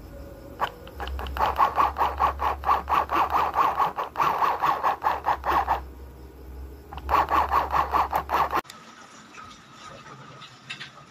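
Mini electric sewing machine stitching fabric: a fast, even needle clatter over a low motor hum. It stops about six seconds in, starts again about a second later, then cuts off suddenly.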